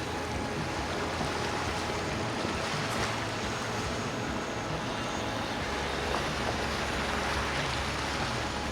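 Powerboat engines running in the inlet with a steady rush of water and wind; a low engine drone grows stronger about halfway through.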